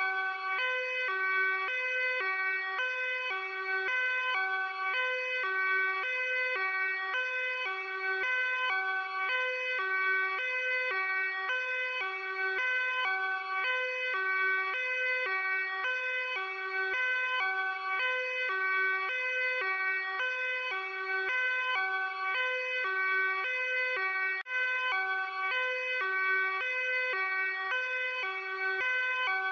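Luxembourg police car two-tone hi-lo siren, switching steadily back and forth between a low and a high tone, with a brief dropout about 24 seconds in.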